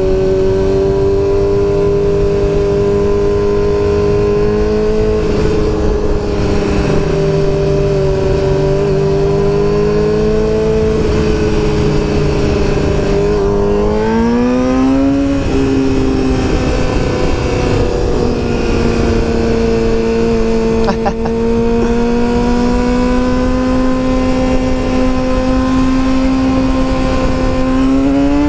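Yamaha R6 sportbike's inline-four engine running at steady cruising revs under way, with wind rush. About halfway the revs climb for a couple of seconds and then drop back. They rise again near the end.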